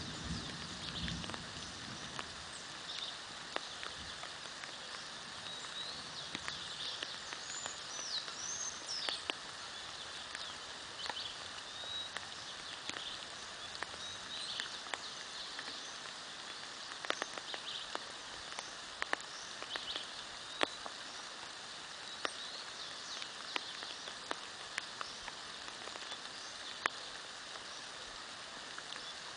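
Birds chirping and calling over a steady hiss of rain, with many scattered sharp ticks. A faint low rumble sits under the first couple of seconds.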